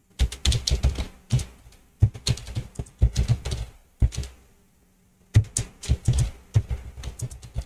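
Computer keyboard typing: several bursts of rapid keystrokes, separated by short pauses.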